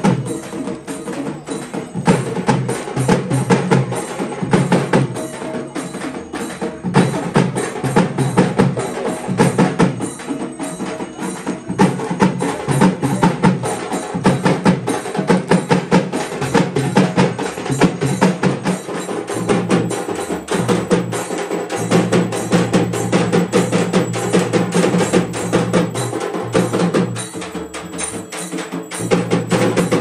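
Music with fast, dense percussion: rapid drum and wood-block-like strikes over steady sustained tones.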